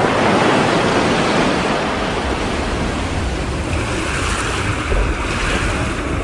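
Ocean waves and surf washing with wind: a steady rushing noise, with a brighter hiss swelling about four seconds in.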